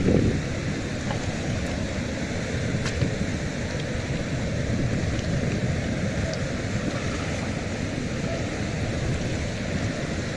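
Steady wind noise buffeting the microphone, a low even rumble, with a few faint ticks.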